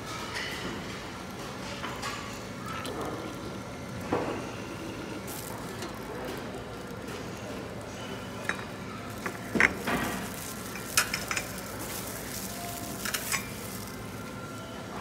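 Porcelain coffee cup clinking and rattling on its saucer as it is lifted and carried, a few sharp clinks from about eight seconds in, over a steady room hum.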